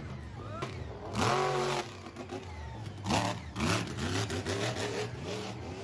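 Monster truck engine revving in repeated bursts, its pitch rising and falling, over a steady low engine hum, with the loudest bursts about a second in and around three seconds in.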